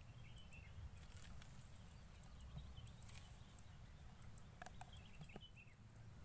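Near silence: faint outdoor ambience with a low rumble, a steady high whine, faint bird chirps and a few soft clicks.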